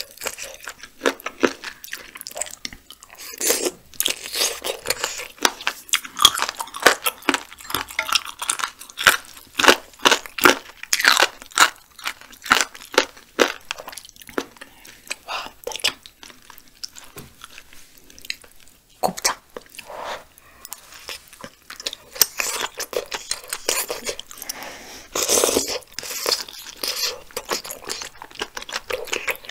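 Close-miked ASMR chewing and biting of dakbokkeumtang, spicy braised chicken with beef small and large intestines (gopchang and daechang): wet mouth sounds made of many short clicks. It eases off for several seconds in the middle, then picks up again.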